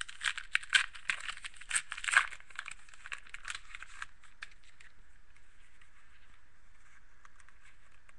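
Score hockey trading cards being handled and flipped through by hand: a quick run of crisp clicks and rustles as the cards are pulled apart and shuffled, dying away about four seconds in to a faint hiss.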